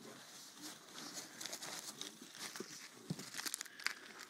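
Packing paper and plastic wrapping crinkling and rustling as a parcel is unwrapped by hand, with a run of sharper crackles about three seconds in.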